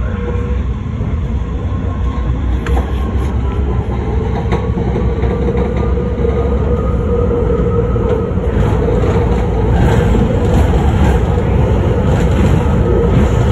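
BART Fleet of the Future subway car pulling away and gathering speed in a tunnel: a steady rumble of wheels on rail under a motor whine that climbs in pitch about halfway through, the whole growing louder, with a few faint ticks.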